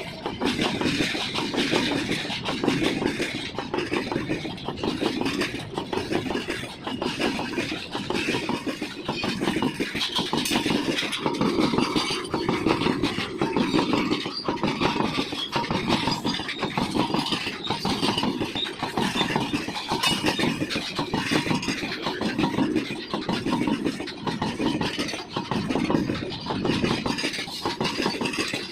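Goods train of BOXN wagons hauled by a WDG-4D diesel locomotive, running past with a steady rolling noise and many quick clicks from the wheels over the rail joints.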